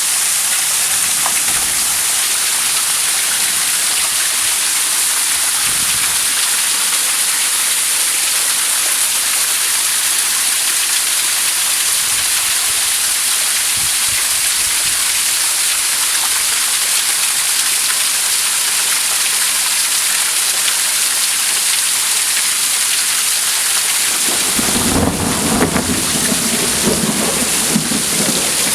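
Heavy downpour, a steady hiss of rain, with a low rumble of thunder coming in near the end.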